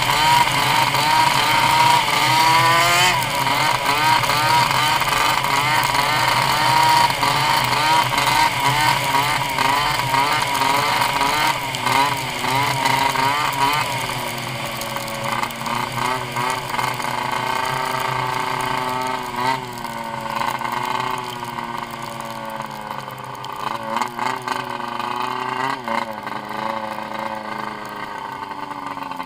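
Turbocharged CFR1200 snowmobile engine running hard at high speed with wind rush, then easing off about halfway through, dropping in pitch and level as the machine slows, and running lower and unevenly at low speed near the end.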